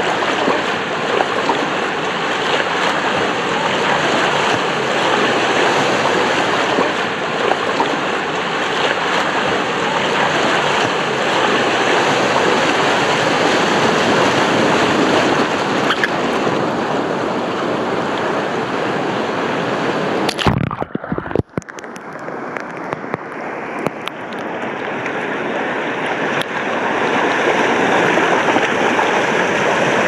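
Fast water rushing and churning around a rider on a wild-water river slide, heard from right at the water surface. About twenty seconds in the sound drops out briefly and then stays muffled and dull for a few seconds before clearing again.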